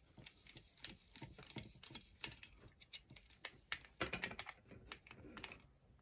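Faint, irregular small clicks and ticks of a screwdriver working a terminal screw on a plastic light switch, tightening down on the inserted wire.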